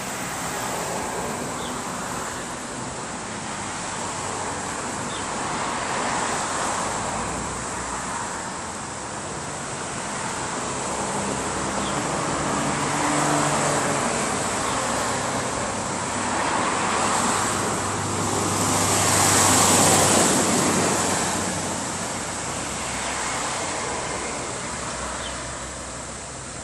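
Road traffic passing: tyre and engine noise of several vehicles rising and fading one after another, with the loudest pass about three-quarters of the way through.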